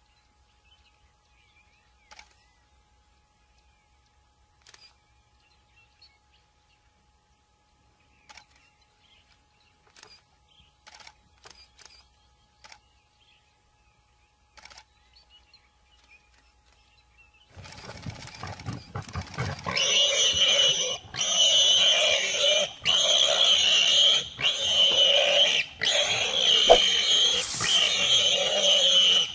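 Near silence with a few faint clicks, then, about two-thirds of the way in, a big cat suddenly starts growling loudly in long calls about a second each, with short breaks between them.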